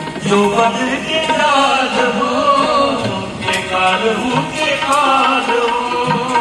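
Devotional song on the soundtrack: a voice singing a wavering melody over steady held instrumental tones.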